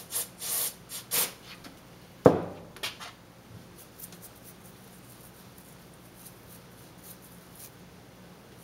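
Short hissing bursts of aerosol carburetor cleaner being sprayed onto small carburetor parts, then a single sharp knock about two seconds in. After that comes faint scrubbing of a toothbrush on the carburetor body.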